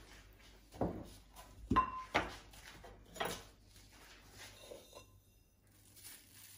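Kitchen handling noises: a few short knocks and rustles in the first half as the plastic zip-top bag of chicken is handled and things are picked up and set down, then quieter.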